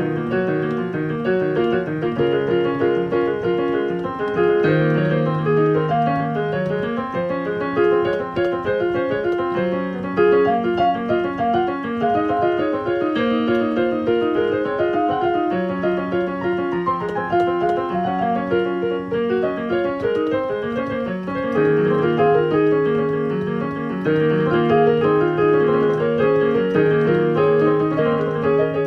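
Solo piano playing: a continuous run of quick notes over slower, held low notes.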